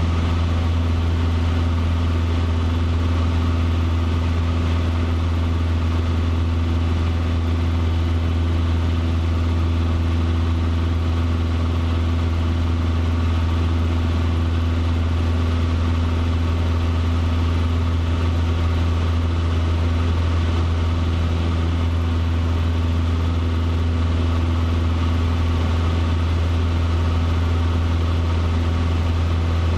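Cessna 150's four-cylinder engine and propeller droning steadily in flight, heard inside the cockpit: a deep, even hum that holds constant power throughout.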